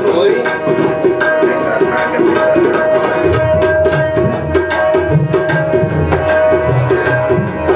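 Tabla and harmonium playing Sufi kalaam accompaniment together. A brisk, steady tabla rhythm runs over held harmonium chords and melody, and the tabla's deep bass strokes come in about three seconds in.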